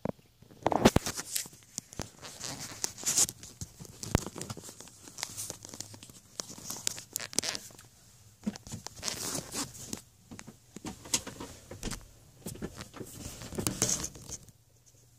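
Irregular rustling and crinkling handling noise with scattered sharp clicks, as the handheld camera is moved about and brushes against things. It stops suddenly about a second before the end.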